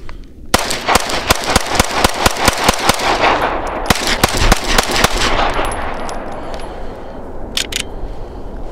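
Glock 9mm pistol rapid-fired with 115-grain FMJ ammunition: a fast string of shots, about five a second, with a short break partway through. The report rings out and fades after the last shot, and two short clicks come near the end.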